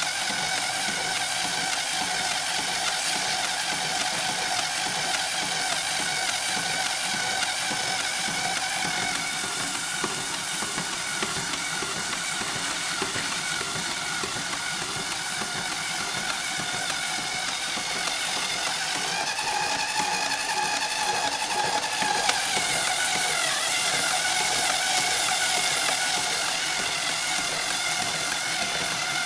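Electric screwdriver motor running steadily with a whine, turning a 4-inch PVC pipe in a homemade jig. 220-grit sandpaper is held against the spinning pipe, adding a steady hiss. The whine shifts in pitch about two-thirds of the way through.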